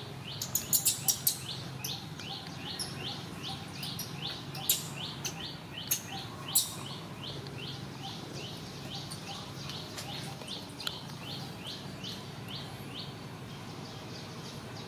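Short falling chirps repeat evenly, about three a second, over a low steady hum. A quick cluster of sharp clicks comes about half a second in, and a few more fall between four and seven seconds.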